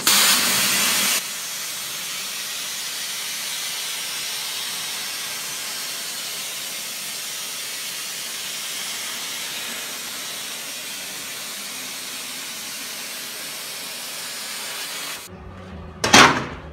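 CNC plasma cutter torch cutting steel plate: a steady high hiss of the plasma arc, louder for about the first second, cutting off suddenly near the end. A single heavy metallic thump follows shortly after.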